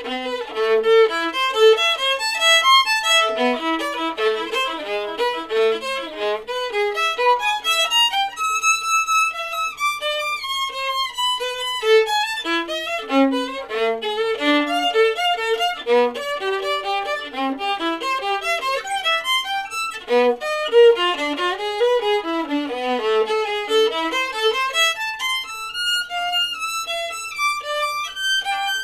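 Solo violin, bowed, playing an unaccompanied melody of quickly moving notes.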